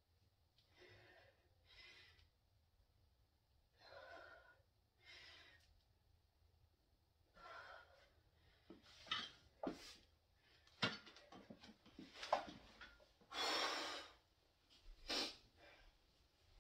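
A lifter breathing hard under a loaded barbell: repeated sharp exhales and gasps, every second or two. In the second half come several sharp clicks, the bar and plates knocking lightly.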